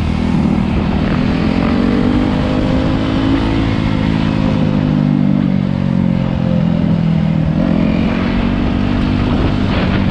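Dirt bike engine running while riding. Its pitch climbs over the first few seconds, eases off, then climbs again near the end.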